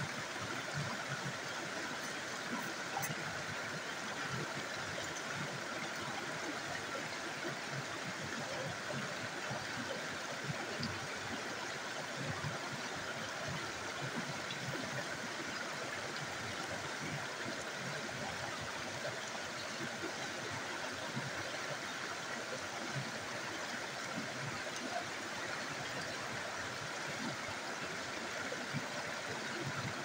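Small rocky stream rushing and splashing steadily over boulders.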